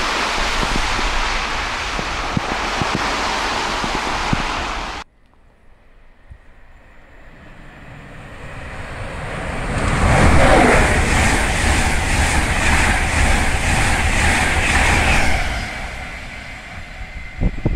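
An InterCity 225 train hauled by a Class 91 electric locomotive passing at speed with wind buffeting the microphone, cut off abruptly about five seconds in. A second InterCity 225 train then approaches, grows loud, passes with a falling tone and a regular rhythm from its wheels on the rails, and fades away.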